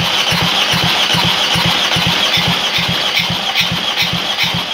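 Opel Z13DTH 1.3-litre diesel being cranked on its starter motor for a compression test on the third cylinder: a steady starter whine over even pulses, about three to four a second, one for each compression stroke. The compression builds to 14 kg/cm² on this cylinder.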